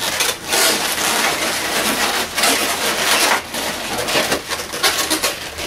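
Inflated latex twisting balloons rubbing against each other and against hands as a balloon figure is twisted and handled, a dense scratchy rubbing with many short crackles.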